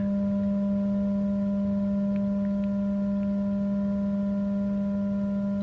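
A steady, unbroken low electronic tone with a few faint higher overtones: a fire alarm sounder on test.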